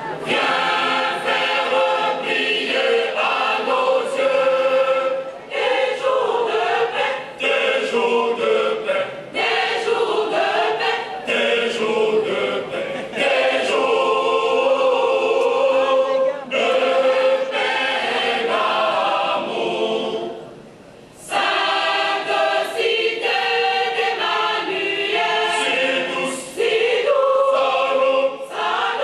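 Choir singing an evangelical Protestant hymn unaccompanied, in sustained phrases, with a short break about two-thirds of the way through.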